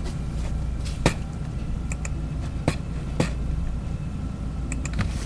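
Several sharp computer mouse clicks, spaced unevenly, over a steady low hum.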